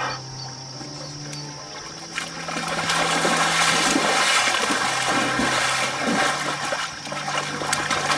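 Water splashing and sloshing as lions haul a zebra out of a waterhole, swelling from quiet to loud about two and a half seconds in.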